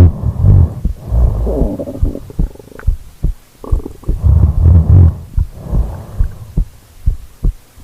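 A person snoring: about four rough, low, rattling snores, each lasting about a second, with short pauses and small clicks between them.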